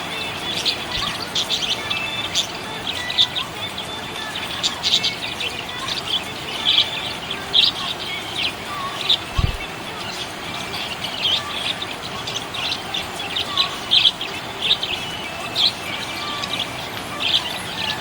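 Small pet parrots chirping: a busy, continuous stream of short, high chirps, several a second, with a brief low thump about halfway through.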